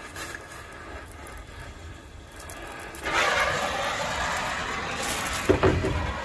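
Oxy-fuel torch flame hissing as it heats a seized, rusted U-bolt nut to free it, much louder from about three seconds in. A couple of short knocks near the end.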